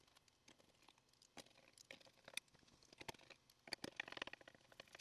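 Near silence with faint, scattered light clicks and taps, a small cluster of them about four seconds in, from hand-driving self-tapping screws into a metal fence rail with a screwdriver.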